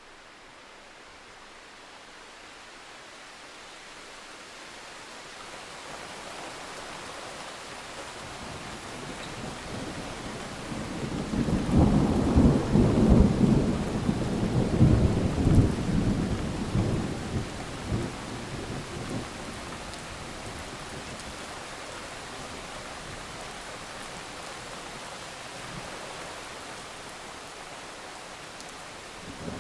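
Steady rain hiss that swells gradually, with a long rolling rumble of thunder about halfway through that peaks and dies away over several seconds before the rain carries on; another rumble begins right at the end.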